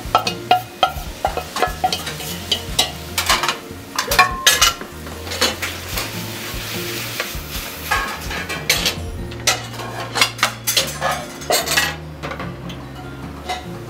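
Wooden spatula stirring spaghetti in a metal frying pan over a gas flame, with repeated sharp clacks and scrapes against the pan and the sauce sizzling; the sizzle is steadiest a little past the middle.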